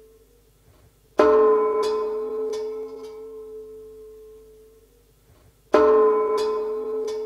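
Soundtrack music of two struck, ringing gong-like metal tones about four and a half seconds apart, each fading slowly, with a few light clicks after each strike.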